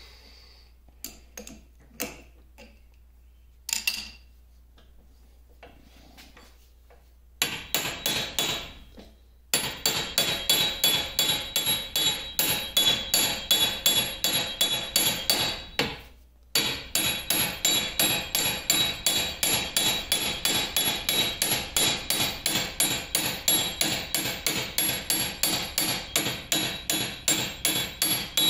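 A hammer striking a wrench on a metal lathe's cross slide, to drive a stuck fastener loose. The strikes come rapidly and evenly, about three a second, each with a short metallic ring. They start about a quarter of the way in after a few scattered knocks and break off briefly past the middle.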